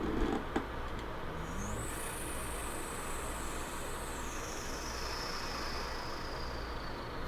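A person imitating a car with their mouth: a steady hissing, engine-like noise with a thin high whine that rises, holds, then slides slowly down. A couple of sharp clicks come just at the start.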